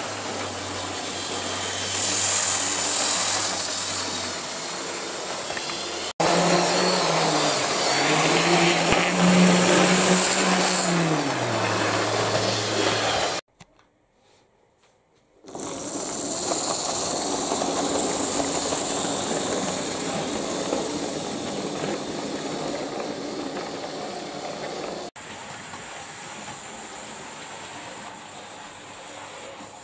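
Model railway trains running on the layout: the locomotives' electric motors hum steadily with running noise from the track. In the middle the motor pitch rises, holds and falls as a train speeds up and slows. The sound breaks into near silence for about two seconds just past halfway, then the running noise resumes.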